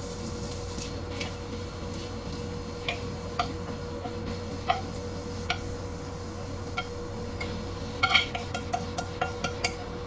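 Wooden chopsticks tapping and scraping against a nonstick pan as saucy shrimp are pushed out onto a plate: a few scattered light clicks, then a quick run of taps near the end, over a steady hum.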